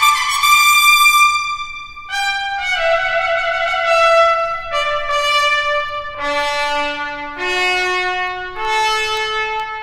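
Solo trumpet playing a slow phrase of long held notes. The phrase starts high, steps down to a low note about six seconds in, then climbs back up.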